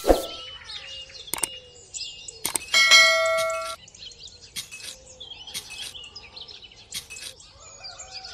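Small birds chirping in the background, with a few sharp clicks and a hit right at the start. About three seconds in comes a bright bell-like ding lasting about a second that cuts off suddenly.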